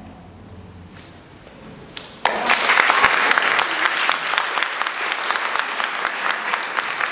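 A choir's last chord dies away. About two seconds later an audience breaks into applause, which continues.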